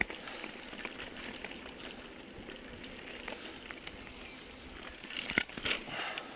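Bicycle riding along a dirt forest trail: tyres crackling over soil and stones, with scattered clicks and rattles. A louder cluster of knocks comes about five seconds in.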